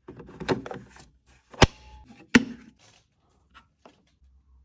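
Hard plastic handling: an M18 battery pack being pushed into the Milwaukee Packout radio's battery compartment, rattling, then two sharp plastic clicks as it seats and the compartment closes. Two faint clicks near the end as the radio's front buttons are pressed.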